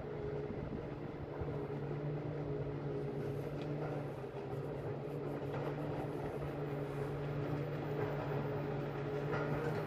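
Forestry forwarder's diesel engine running with a steady low drone.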